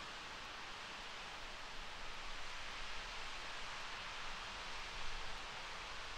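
Faint, steady hiss of water spray and steam at an RS-25 rocket engine's test stand, just after the engine has shut down.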